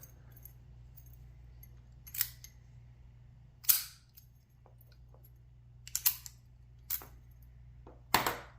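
Hard metal objects, a lock and small tools, being handled and set down on a work surface: about five sharp separate clicks and clacks at irregular moments, the loudest a little past a third of the way in, over a low steady hum.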